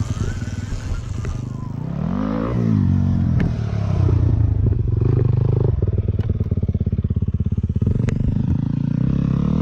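Yamaha YZ450FX single-cylinder four-stroke dirt-bike engine idling, with one brief rev about two seconds in that rises and falls back to idle. A few faint clicks can be heard over it.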